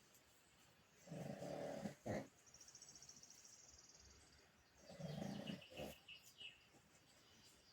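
Pug snoring: two snores, each under a second long, about four seconds apart.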